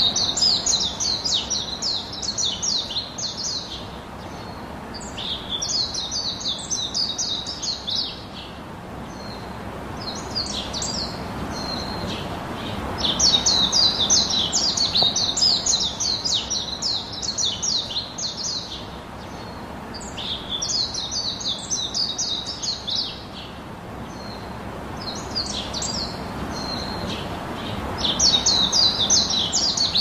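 A songbird singing rapid, high chattering phrases a few seconds long, over and over with short pauses. Under it is a soft rush of wind in the trees that swells and fades.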